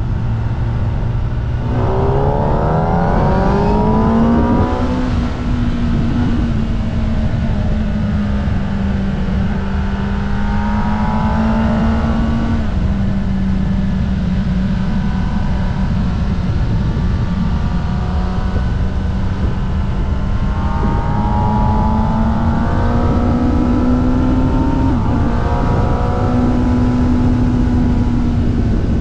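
Kawasaki ZX-10R sportbike's inline-four engine running at speed, revving up and shifting through the gears three times, with the pitch rising and dropping at each shift, over heavy wind rush on the microphone.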